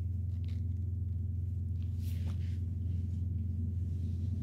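Steady low hum of an idling truck engine heard inside the cab, with a few faint clicks from handling.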